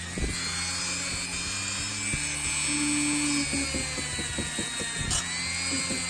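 Handheld rotary tool with a small buffing wheel running at high speed against the chrome-plated base of a diecast toy car, buffing it with metal polish: a steady high whine that wavers slightly in pitch as it bears on the metal.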